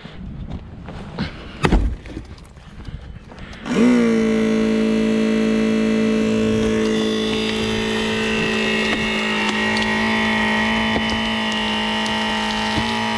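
Clicks and knocks of the rescue ram being handled and set in place, with a loud thump about two seconds in. About four seconds in, the electric pump of a HURST R 521 eDraulic battery-powered rescue ram starts and runs with a steady hum.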